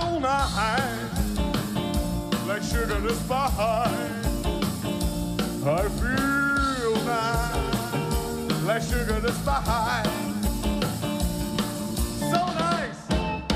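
Rock and roll band music with a steady drum beat, bass and guitar, and a singing voice.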